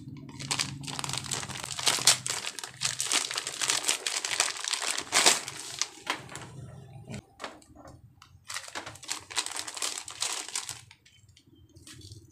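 Crinkling of a plastic cable pouch being handled and opened as the cable is pulled out. There is a long stretch of crackling, then a second shorter stretch about nine to eleven seconds in.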